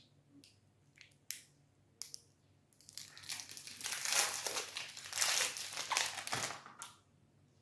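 Plastic wrapper of a protein bar crinkling as it is handled: a few short crackles, then about four seconds of steady crinkling that stops near the end.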